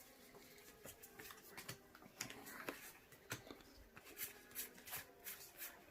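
Faint, scattered soft clicks and slides of Pokémon trading cards being flipped through by hand, about one or two a second.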